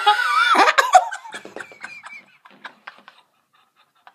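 Laughter and giggling, loudest in the first second with a high, wavering laugh, then breaking into scattered giggles that fade out near the end.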